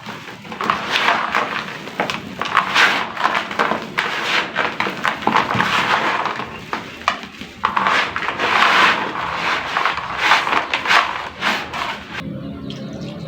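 Dry sand-cement and brick-red clay chunks crumbling into a tub of water, a dense, uneven crackling and crunching with many sharp clicks. About a second before the end it turns suddenly quieter and thinner.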